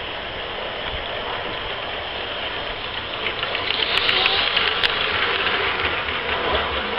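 G-scale model train running on the track and passing close by, its wheels and running gear clattering on the rails with a rapid run of small clicks. It grows louder from about three seconds in and is loudest as it goes by, with a few sharp clicks.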